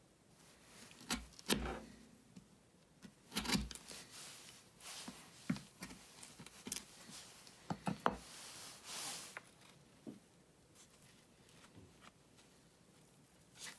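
Hand work on wooden guitar braces: scattered sharp clicks and knocks of wood and tools being set down and handled, with a short stretch of rubbing about nine seconds in.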